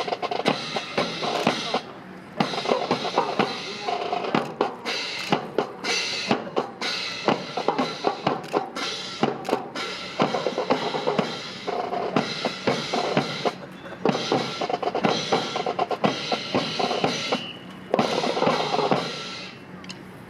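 Marching percussion: snare drums beating fast strokes and rolls over bass drum beats, with brief lulls about two seconds in and again shortly before the end.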